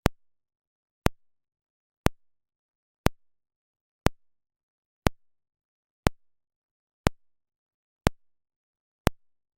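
Speaker polarity test pulses: a sharp, very short click repeating steadily about once a second, with silence between.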